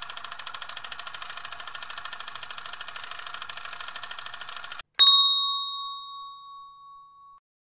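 Quiz countdown-timer sound effect: rapid, even clock ticking for nearly five seconds, stopping suddenly, then a single bright bell ding that rings and fades over about two seconds, marking the answer reveal.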